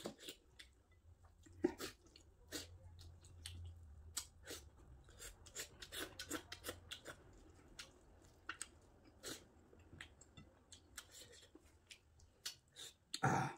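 Close-up eating sounds: chewing and many short, irregular wet mouth smacks and clicks from a man eating rice with pork curry by hand.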